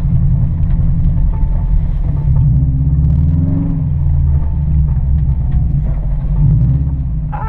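Vehicle engine and drivetrain rumbling loudly while driving off-road, the engine note rising and falling briefly about three seconds in.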